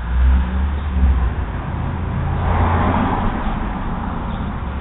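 Motor vehicle passing, heard through a doorbell camera's microphone: a low rumble at first, then a swell of road and tyre noise that peaks about three seconds in and fades.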